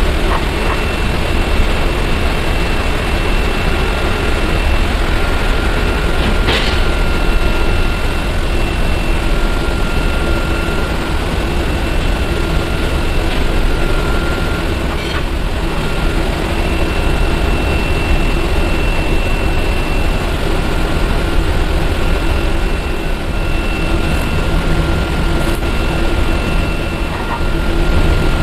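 A loud, steady machine drone with a constant thin whine over it, and a couple of faint clicks.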